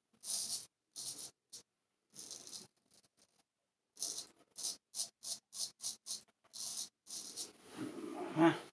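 Person Special Solingen straight razor scraping through lather and stubble on the cheek: a series of short, dry rasping strokes with pauses between them, coming quickly one after another in the middle. Near the end there is a louder, lower handling noise.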